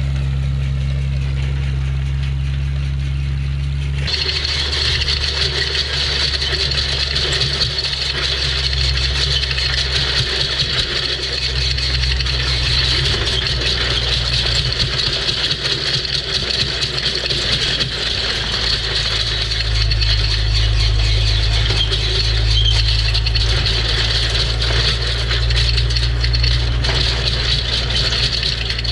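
Old tractor engine running steadily. About four seconds in, a loud rattling joins it and carries on, and the engine note shifts and gets heavier about two-thirds of the way through.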